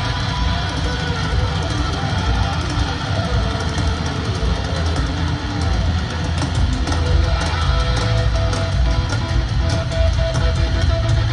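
Live heavy metal band playing loud through an arena PA: distorted electric guitar, bass and drums in the big closing section of the song, heard from the crowd with the hall's echo.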